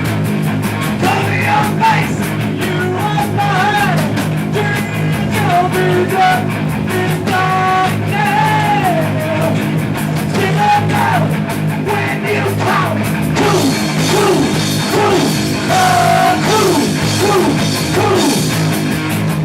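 Live punk rock band playing loudly: guitar-heavy rock with a voice singing over it.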